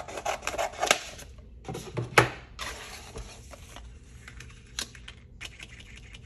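Scissors cutting through a sheet of paper-backed transfer tape: a quick run of snips and crackles in the first second. Then a sharp knock about two seconds in, followed by scattered lighter taps and rustles as the sheets are handled on a cutting mat.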